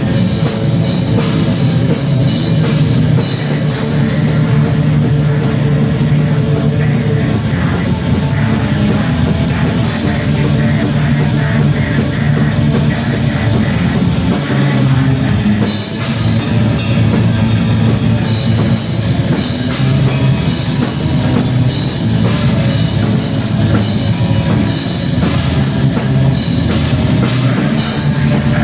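Black metal band playing live at full volume: distorted guitars and drum kit in a dense, unbroken wall of sound, with a brief drop about halfway through.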